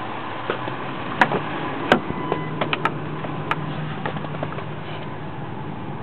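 Rear door of a Lincoln Navigator being opened: two sharp clacks from the handle and latch, the second the loudest, then a few lighter clicks and knocks. A low steady hum comes in as the door swings open.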